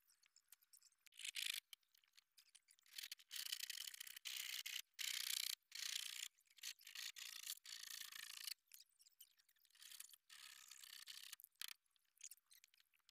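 Hand saw cutting through the edge of a blue plastic drum: a high, hissing rasp in runs of short strokes, pausing a couple of times and dying away near the end.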